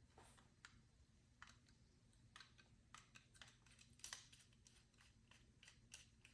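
Faint, irregular light clicks and ticks of a screwdriver and small metal door-handle parts being worked as a screw is taken out.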